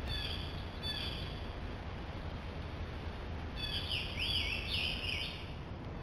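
A songbird singing: a few short high chirps near the start, then a longer warbling phrase with sweeping notes a little under four seconds in, over a steady low rumble.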